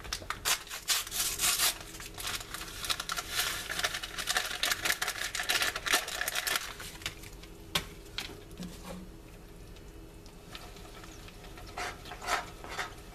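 Dry oats poured from a cereal packet into a nonstick saucepan of chocolate mixture: a dense rustle with many small clicks for about the first six seconds, then it dies down. Near the end a spoon scrapes and stirs them in.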